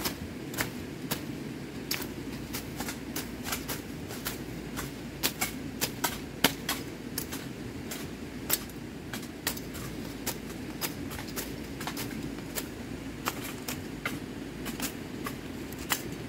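Irregular sharp clicks or taps, about two or three a second and some louder than others, over a steady low background hum.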